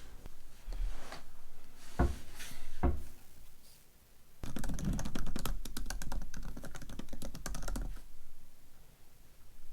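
Typing on a computer keyboard: a few separate taps, then a quick run of keystrokes lasting about three and a half seconds from around the middle.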